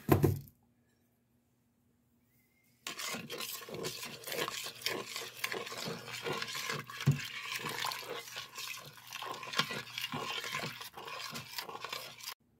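A utensil stirring a thin milk-and-ham sauce in a stainless-steel Instant Pot insert, scraping and clicking against the pot with liquid sloshing. The stirring starts about three seconds in and keeps up steadily while the sauce heats to thicken.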